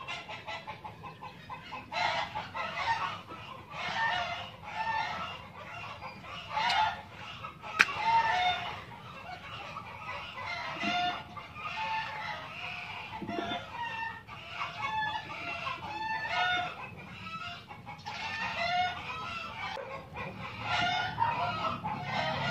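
Chickens clucking, many short calls one after another, with a single sharp click about eight seconds in.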